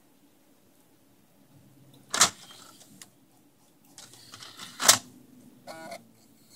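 Xbox 360 Slim's Lite-On DVD drive mechanism clacking twice, with a faint, short motor whir as the disc tries to spin up and stops at once: the drive fault behind the Open Tray Error.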